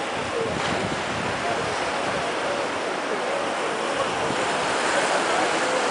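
Steady rush of ocean surf on a beach, mixed with wind on the microphone.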